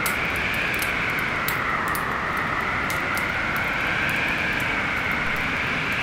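Storm wind howling, a slowly wavering whistle over a steady rushing noise, with the sharp pops and crackles of a wood fire scattered throughout.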